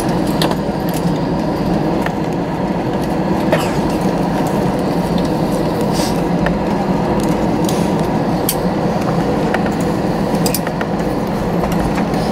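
Cabin noise of an Airbus A321 slowing on the runway just after landing: a steady low rumble of the engines and rolling wheels, with scattered light clicks and rattles from cabin fittings.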